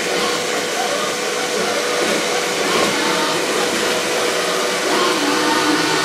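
Klarstein XR210 robot vacuum cleaner running: a steady whir from its suction fan and brushes, with a hum on top. It turns away from the edge of a staircase, and its tone changes about five seconds in.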